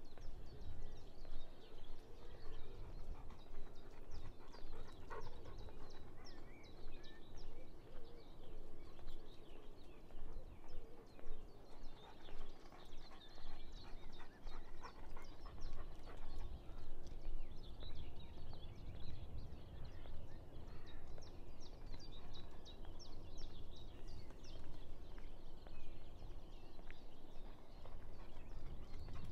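Outdoor countryside ambience: many small birds chirping and singing over a steady low rumble.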